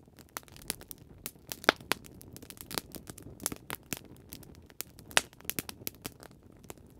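Wood fire crackling: irregular sharp pops and snaps, several a second and uneven in loudness.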